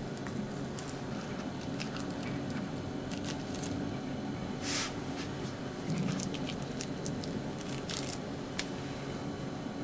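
Faint soft rustles and light clicks of cut-out cookie dough being peeled off plastic cling wrap, with a brief rustle about halfway through, over a steady low hum.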